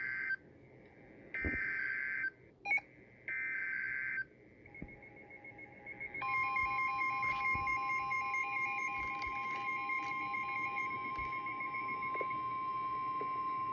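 Emergency Alert System signal on NOAA Weather Radio: three short bursts of warbling two-pitch digital header data about a second apart, then a steady single-pitched alarm tone. It is the signal that announces a new warning broadcast. A fainter beeping pattern runs under the alarm tone for most of its length.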